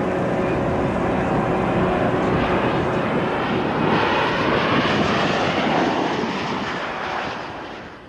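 Twin piston-engine Aero Commander Shrike making a low pass: engine and propeller noise swells to its loudest about four to five seconds in as the plane passes close, then fades away near the end.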